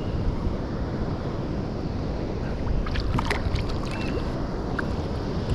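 Wind buffeting the microphone over water lapping against a sit-on-top fishing kayak on open sea, with a short run of sharp clicks and splashes about three seconds in as a small fish is reeled up.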